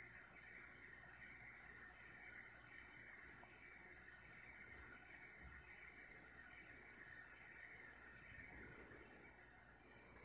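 Near silence: room tone, a faint steady hiss with a low hum.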